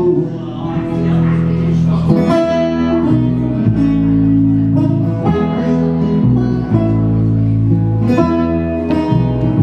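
Acoustic guitar strummed with an upright double bass plucked underneath, an instrumental passage of a live folk song; the bass moves to a new note about once a second.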